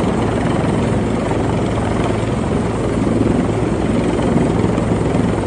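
Helicopter rotor and engine sounding steadily and loudly, a fast even blade chop over a low steady hum.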